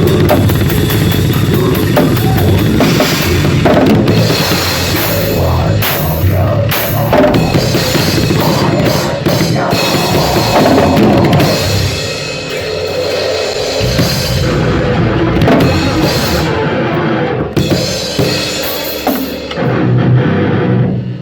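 A drum kit played loudly and without a break in a rock or metal style, as a warm-up.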